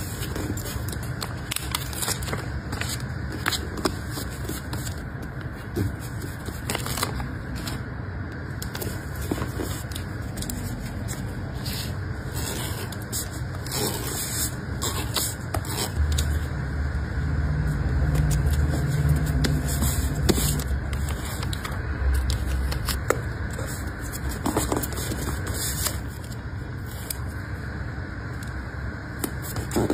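Hands handling paper and plastic packaging: rustling, crinkling, small scrapes and clicks while stationery is worked with tape and tweezers. Under it a steady low rumble that grows louder for several seconds past the middle.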